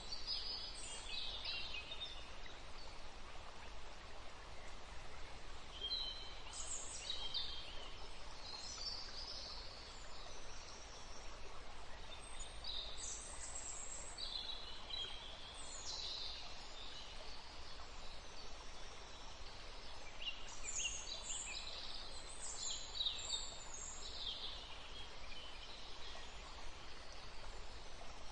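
Forest ambience for sleep: a steady, even wash of green noise with a low rumble underneath, and small birds chirping and calling in short high-pitched clusters every few seconds.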